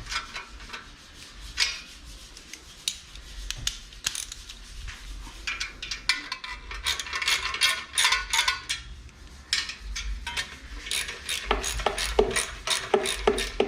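Hand ratchet wrench clicking in short runs while the exhaust-pipe mounting nuts are tightened, with clinks and scrapes of metal tools; the clicks come quicker and closer together near the end.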